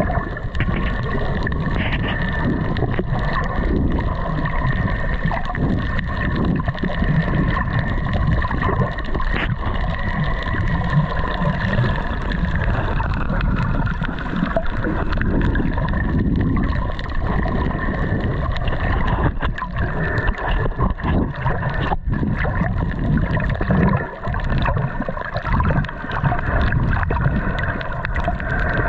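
A motorboat's engine running steadily with a held whine that drifts a little in pitch, over rushing, gurgling water.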